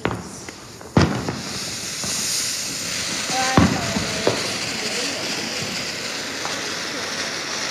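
Ground fountain firework catching with a sharp pop about a second in, then hissing steadily as it sprays sparks, with another sharp crack a few seconds later.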